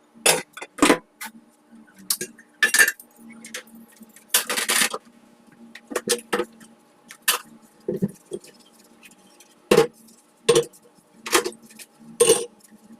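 Dishes and utensils clinking and knocking: about fifteen separate sharp strikes at an uneven pace, with a longer rattle about four and a half seconds in, over a faint steady hum.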